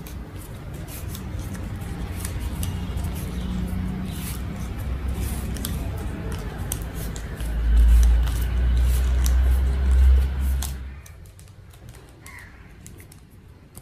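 Nylon trimmer line rubbing and clicking against the plastic spool of a STIHL bump-and-feed brush cutter head as it is wound on tight by hand, with light plastic handling clicks. A loud low rumble comes in about halfway through and stops some three seconds later.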